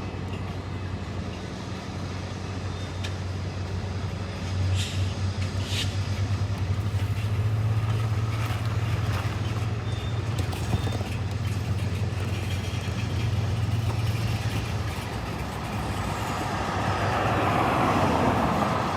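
Sierra Northern Railway #133's diesel locomotive engine running with a steady low drone that grows louder and throbs about four seconds in, with two short sharp sounds soon after. A rushing noise builds near the end.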